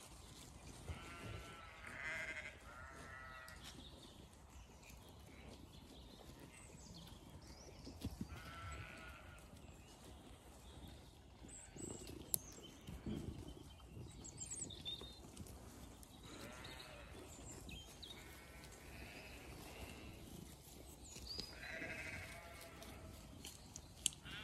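Zwartbles sheep bleating again and again, about six wavering calls each lasting about a second, spaced unevenly.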